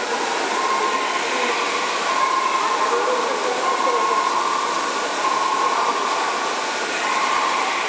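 Steady rushing noise of water and air-handling in an aquarium hall, with faint voices. A faint thin tone comes and goes every second or so.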